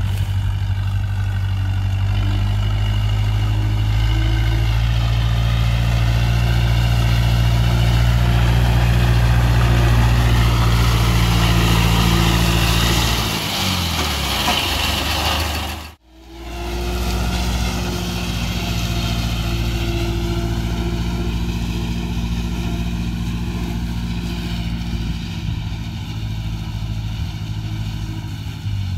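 John Deere 2250 tractor's diesel engine running steadily under load while driving a Polish drum mower through alfalfa. The sound drops out for a moment just past halfway, then the same steady running resumes.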